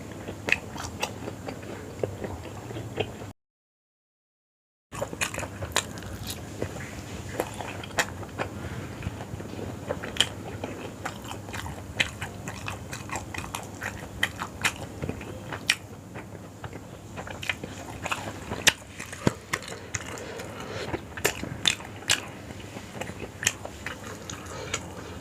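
Close-miked chewing and biting while eating yong tau foo, with many sharp wet clicks and smacks throughout. The sound cuts to dead silence for about a second and a half, a few seconds in.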